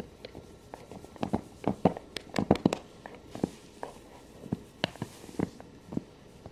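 A hand petting and rubbing a dog's fur close to the microphone: irregular soft taps and clicks, with a short rustle about three and a half seconds in.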